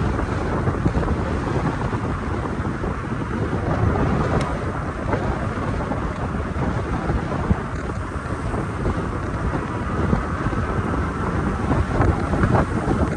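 Wind buffeting the microphone of a camera on a moving e-bike: a steady low rumble that swells and eases in gusts.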